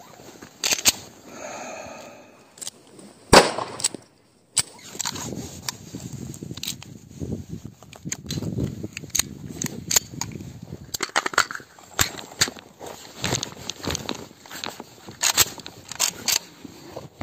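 Firearms at an outdoor range: many sharp cracks and clicks at irregular intervals, with a short break about four seconds in.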